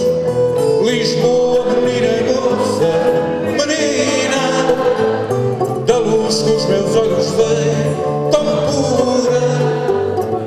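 Fado accompaniment: a Portuguese guitar playing the melody over a classical guitar (viola) strumming and plucking the chords, continuous and fairly loud.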